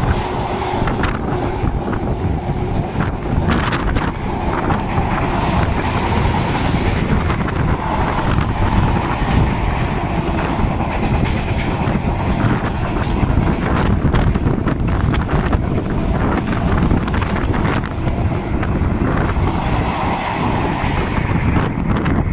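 Freight train of double-deck car-transporter wagons passing close at speed: a continuous loud rush of wheels on rail and wind, with a steady scatter of clicks and clatter from the wheels over the track.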